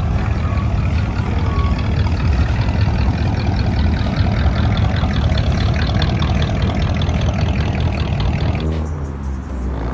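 Loud motor-vehicle engine running with a steady, rapidly pulsing exhaust note. Near the end the noise thins and a pitched hum dips, then starts to rise.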